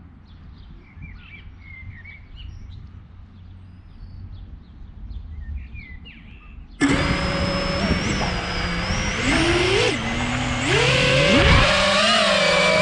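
Small birds chirping faintly, then about seven seconds in an FPV quadcopter's motors start with a sudden loud whine that rises and falls in pitch as the throttle changes and it lifts off.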